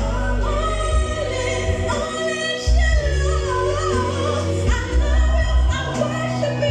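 A woman singing a gospel song into a microphone, with vibrato in her voice, over an accompaniment with a deep, stepping bass line.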